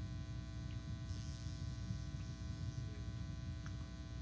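Steady electrical mains hum and buzz in the sound system, with a low rumble underneath, in a pause between spoken phrases.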